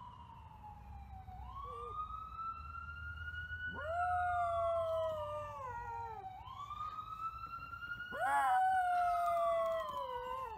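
A siren wails, its tone slowly rising and falling, and a small black-and-white long-haired dog howls along with it. The dog gives two long howls, about four seconds in and again about eight seconds in, each jumping up at the start and then sinking slowly.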